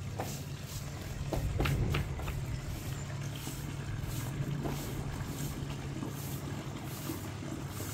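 Straw broom sweeping a tiled rooftop floor in repeated short strokes, over a steady low rumble.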